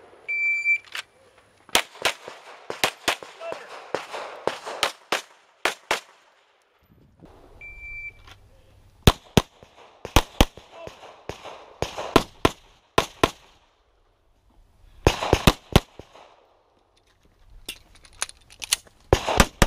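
Strings of gunshots fired in quick succession, in several bursts with pauses between, each shot ringing briefly. Two short, high electronic beeps sound, one right at the start and one about eight seconds in.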